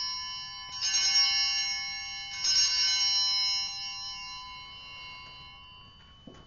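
Altar bells rung at the elevation of the host after the consecration. The bells are already ringing and are struck again about a second in and again about two and a half seconds in, a cluster of bright ringing tones that slowly dies away.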